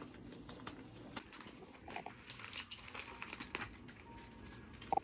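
Rustling and crinkling with scattered light clicks and taps.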